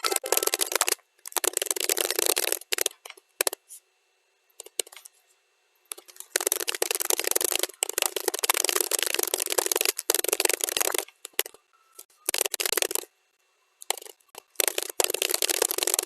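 Computer keyboard typing played back at double speed: fast runs of key clicks in bursts, broken by short pauses, with a longer pause of about two seconds a few seconds in.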